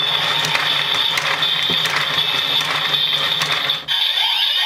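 DX Build Driver toy belt with its crank lever being turned: the gearing ratchets with fast repeated clicks over the belt's steady electronic charging sound for the Vortech Finish finisher, which changes after a short break near the end.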